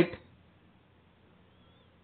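A man's narrating voice finishes a word right at the start, then near silence: faint room tone through a pause in the narration.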